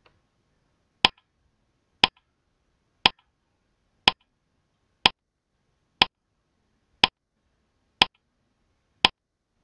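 Countdown timer sound effect: a sharp clock-like tick once a second, nine ticks in a row.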